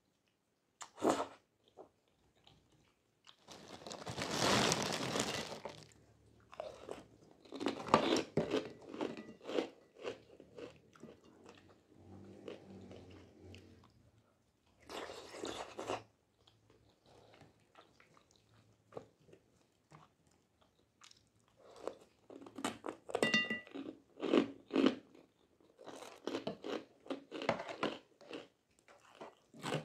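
Close-miked eating of flat rice noodles and meatballs in soup: two long slurps of noodles, about four seconds in and again around fifteen seconds, between wet chewing and small clicks.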